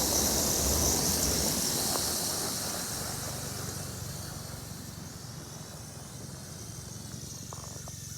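A car passing on the road, its engine and tyre noise loudest at first and then fading over several seconds. Under it runs the steady high whine of a small toy quadcopter drone's motors and propellers.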